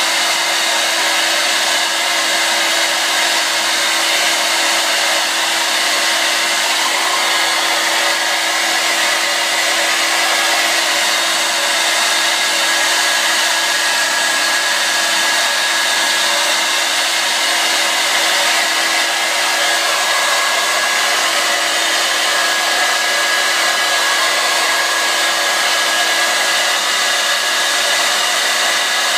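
Handheld hair dryer blowing on damp hair: a loud, steady rush of air with a constant motor hum underneath.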